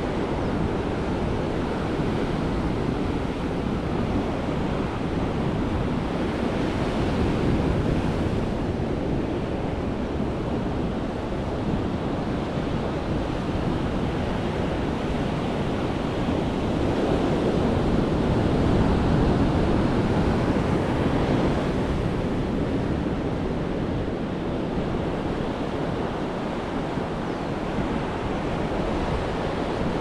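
Ocean surf breaking and washing up a sandy beach: a steady rush that swells louder as bigger waves come in, about a quarter of the way in and again past the middle. Wind buffets the microphone with a low rumble.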